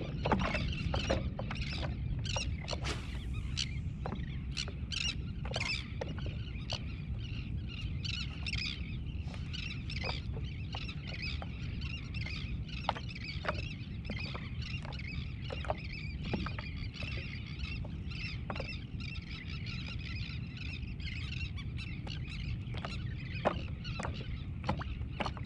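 Small irregular ticks and slaps of water lapping against a stand-up paddle board, over a steady low wind rumble on the microphone.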